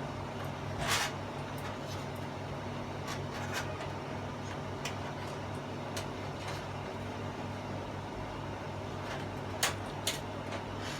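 Steady low electrical hum, with a handful of short sharp clicks and taps as tester probes are put to the TV's LED backlight strips; the loudest clicks come about a second in and twice near the end.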